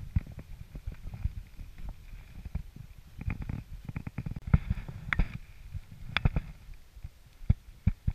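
Handling noise of a spinning rod and reel being wound in: irregular soft knocks and clicks over a low rumble of water against the belly boat.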